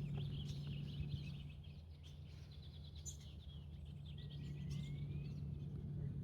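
Wild birds calling: a quick run of high chirps, then one long whistle that glides up and back down, over a steady low hum.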